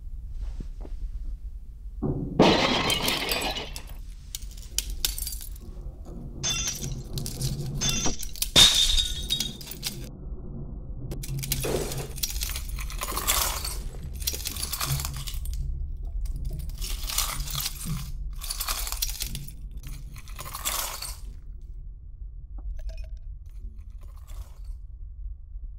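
Sound-designed crashes of breaking icicles, slowed down: a heavy crash about two seconds in, then a long run of shattering and clinking ice crashes that dies away after about twenty seconds, over a steady low rumble.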